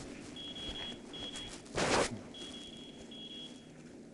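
An electronic medical monitor giving four high, steady beeps in two pairs, the first beep the longest. A brief loud rustle of clothing against the microphone comes just before the second pair.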